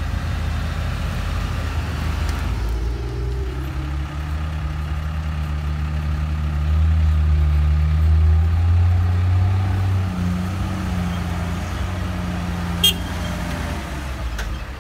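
Diesel engine of a LiuGong motor grader running under load in mud. Its note rises and gets louder about halfway through, then eases off, with one sharp click near the end.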